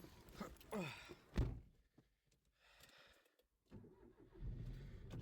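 A Toyota Aygo's door shuts with a thunk about a second and a half in; near the end its engine starts and settles into a steady idle.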